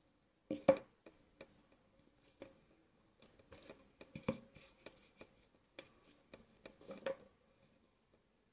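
Pencil, compass and plastic set square handled on a sheet of paper: scattered taps, knocks and short scratches, the loudest just under a second in.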